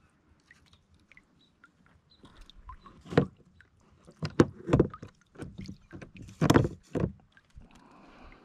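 A Hobie kayak's hull and deck gear knocking and thumping about five times as rope and gear are handled on board.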